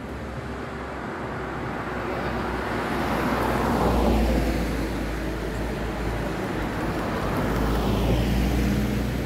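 Road vehicles passing by: one swells to its loudest about four seconds in and fades, and a second passes near the end, over a steady low hum.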